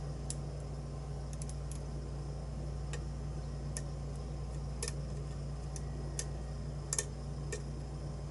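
Small, sharp, irregular clicks of lock-picking tools working the pins inside a challenge lock, about a dozen spread unevenly, over a steady low hum.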